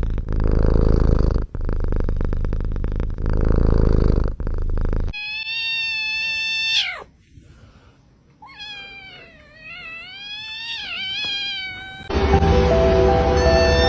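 A cat purring loudly, a rough low rumble with two short breaks, for about five seconds. Then a long meow that drops in pitch at its end, and a second, wavering meow. Music comes in near the end.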